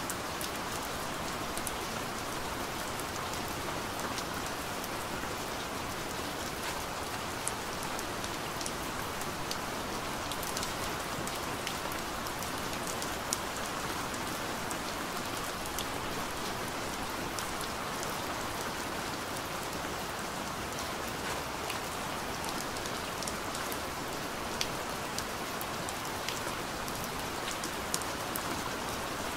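Steady rain falling on a surface, with scattered sharp drop hits.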